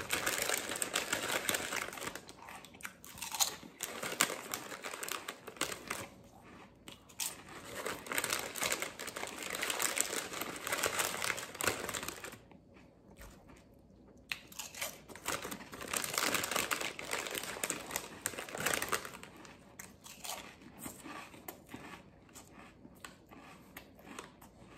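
Plastic snack bag crinkling as a hand rummages in it, in three long stretches with a short pause between the second and third, then lighter crackly crunches of chips being chewed close to the microphone near the end.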